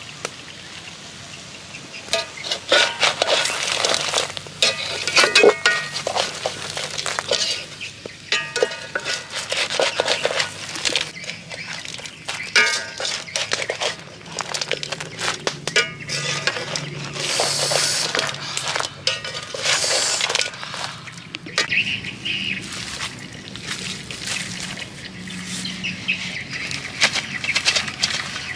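Metal ladle stir-frying crabs in a metal wok: irregular scraping and clattering of crab shells against the pan, in uneven bouts with short lulls.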